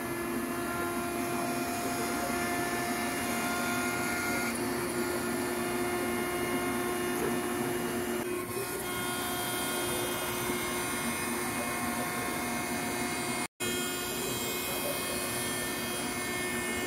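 CNC router table running as it cuts plastic sheet: the spindle's steady whine of several tones over a continuous rushing noise. The sound drops out for an instant about three-quarters of the way through.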